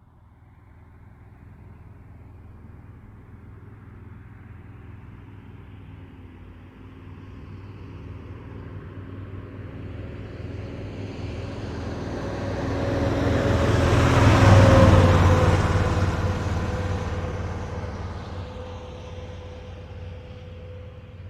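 Truck driving past: its engine drone and tyre noise grow slowly louder, peak about fourteen seconds in as it passes closest, then fade as it moves away, with a steady tone dropping slightly in pitch as it goes by.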